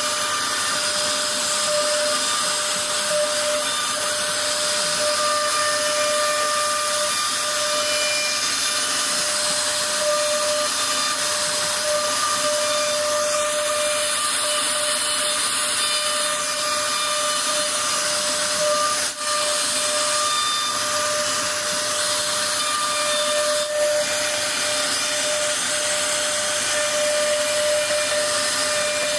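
CNC router spindle running with a steady whine while its bit carves a relief pattern into a wooden board, with the hiss of the cut wood.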